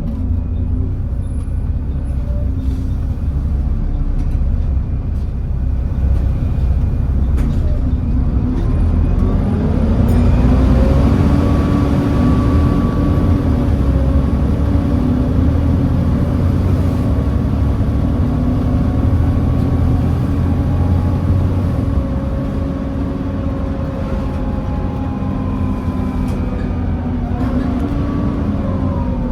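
Volvo B7TL double-decker bus heard from on board: its D7C engine and cooling fans whine, rising in pitch about ten seconds in as the bus gathers speed, holding steady, then falling near the end as it slows.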